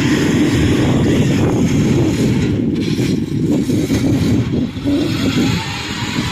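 Engine of a tracked rice-hauling cart loaded with sacks of rice, running as the cart drives across the harvested paddy; a dense, steady low rumble that eases slightly near the end.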